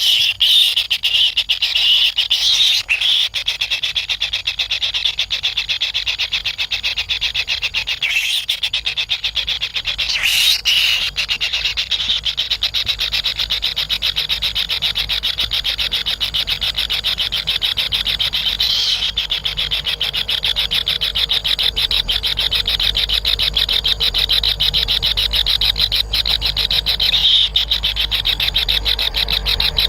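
Kingfisher chicks in the nest giving hungry begging calls: a continuous, rapidly pulsing buzzy chorus that flares louder several times.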